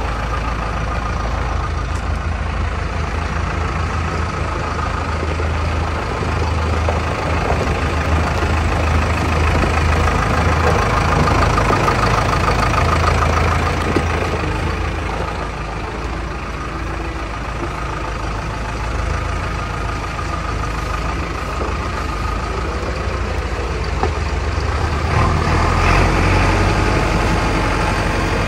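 Diesel engine of a JCB 3DX backhoe loader idling steadily, swelling a little louder for a few seconds mid-way and again near the end.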